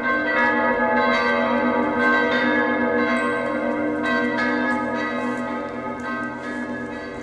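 Church bells pealing: several bells struck one after another at an uneven pace, their tones ringing on and overlapping, the whole peal slowly fading towards the end.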